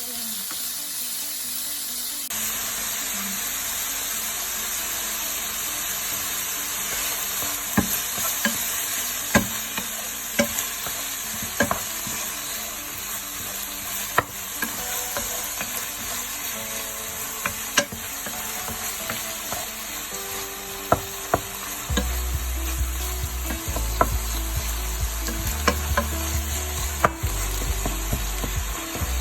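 Meat frying in a pan, a steady sizzle, while it is stirred, with scattered sharp clicks of the utensil against the pan.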